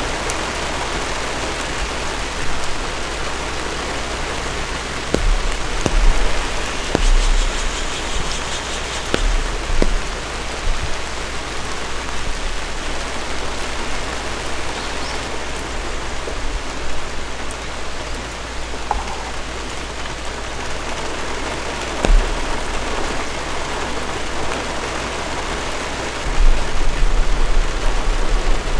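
Steady rain falling, with a few louder drops striking close by. A low rumble swells in near the end.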